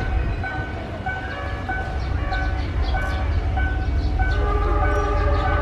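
Level-crossing warning signal sounding a repeating electronic tone about one and a half times a second, over a steady low rumble.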